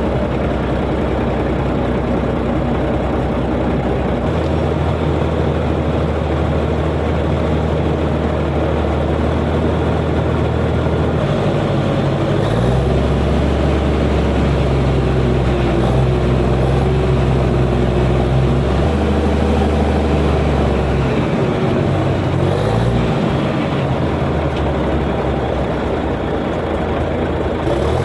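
Komatsu bulldozer's diesel engine running steadily and loudly, its note stepping up and down several times as the engine speed changes, with a brief wavering rise and fall about two-thirds of the way through.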